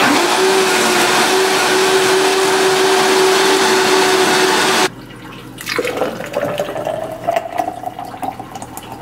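Countertop blender running on high, blending a thick green smoothie with ice, with a steady motor tone; it cuts off suddenly about five seconds in. Then the thick smoothie is poured from the blender jar into a tall plastic tumbler, the pour rising in pitch as the cup fills.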